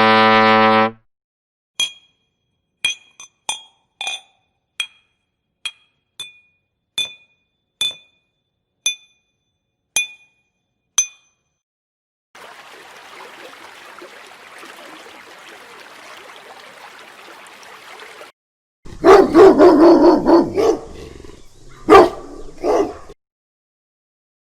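A run of separate sound effects: a short buzz in the first second, then about a dozen sharp clicks roughly a second apart, a steady hiss for about six seconds, and near the end loud bursts of a dog barking.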